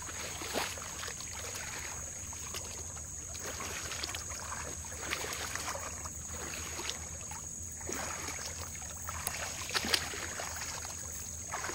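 Water sloshing and splashing around a person's legs as he wades through shallow floodwater, one step about every second.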